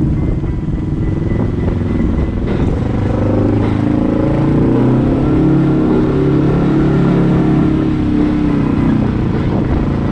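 Kawasaki KRX 1000 side-by-side's parallel-twin engine running under way, its note rising and falling gently with the throttle.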